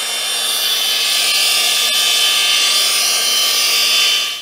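Electric drill motor turning a hydro-drilling rod down through dense clay, running steadily at constant speed, then switched off about four seconds in as the second rod is drilled down.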